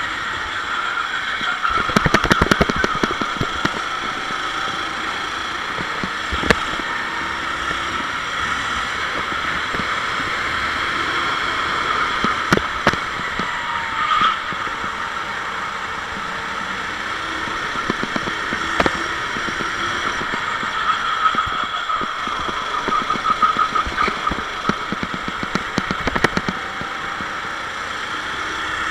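A Sodi SR4 rental kart's four-stroke engine running at racing speed on board, its pitch rising and falling through the corners. Sharp knocks and rattles break in now and then, loudest about two seconds in and again near the end.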